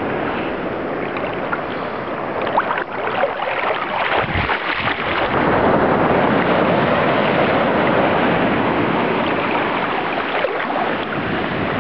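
Sea water splashing and rushing right at a microphone held just above the surface, with wind buffeting the microphone. A steady wash of noise, with a few sharper splashes about two to three seconds in and a deep gust shortly after.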